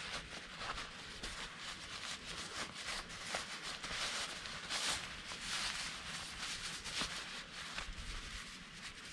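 Crinkly rustling of nylon fabric as a puffy black insulated garment is squeezed and pulled out of its stuff sack, with many small crackles and scrapes of handling; loudest around the middle.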